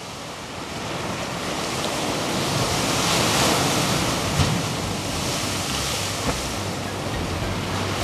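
Sea waves breaking on a pebble shore and against low rocks, the surf swelling to its loudest about three seconds in.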